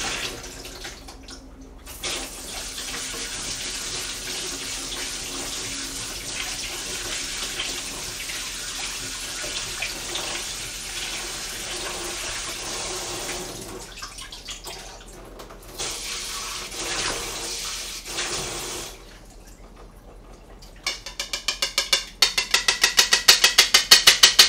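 Kitchen tap running as thawed minced beef is rinsed under it to wash out the blood, the water stopping briefly twice. Near the end, a loud, fast rattling run of taps, about ten a second.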